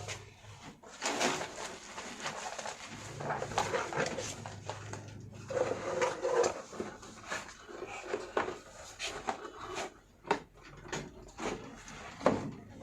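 Irregular clicks, knocks and rustling from hands working on a PC case, with metal parts and screws being handled.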